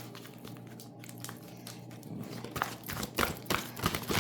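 A deck of oracle cards being shuffled by hand: a faint steady hum at first, then a quick run of light clicks and taps from the cards starting about two and a half seconds in.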